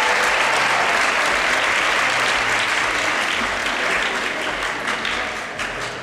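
Audience applause, a dense clapping that starts to die down over the last couple of seconds.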